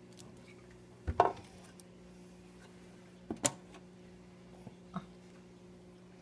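Porcupine pufferfish biting at a mussel shell: three sharp hard clicks, the loudest about a second in, another midway and a faint one near the end, over a steady low hum of aquarium equipment.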